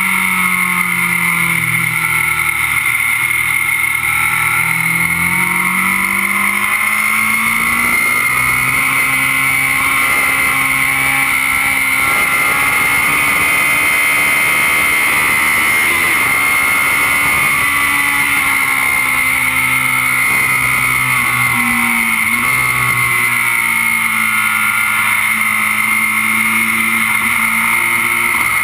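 Kawasaki Z750's inline-four engine running hard at high revs over heavy wind and road noise, recorded right beside the engine cases. The revs fall and climb again twice, once near the start and once near the end, as the bike goes through corners.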